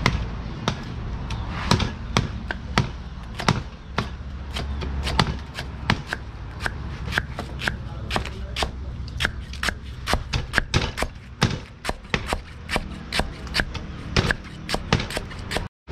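Cleaver knocking on a wooden chopping block in quick, even strokes as it slices lemongrass stalks into thin rings, about two to three cuts a second.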